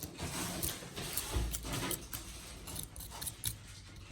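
Scattered light clicks and scrapes from small repair tools being handled during a phone back-glass repair.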